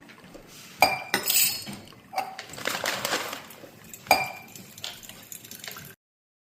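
Parts of a GINA smart coffee maker clinking and knocking as they are handled, with several sharp, ringing clinks among quieter rattling; the sound cuts off suddenly near the end.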